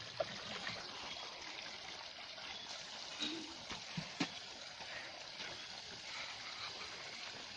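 Stream water running steadily, with a few faint knocks.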